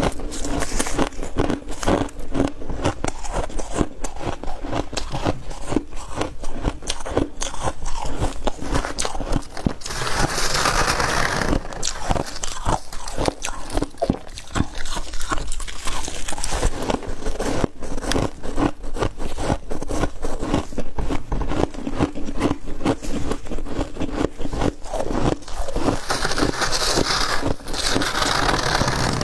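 Close-up crunching and chewing of ice and freezer frost, a dense run of rapid crisp crunches. Twice, at about a third of the way through and again near the end, a longer hissing crunch stands out.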